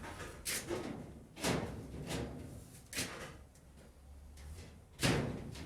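A handful of irregular knocks and bangs, about five in all, with the loudest near the end.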